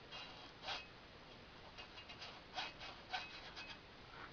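Faint, irregular short scrapes and rubs of a hot glue gun being worked over CPVC pipe while glue is applied.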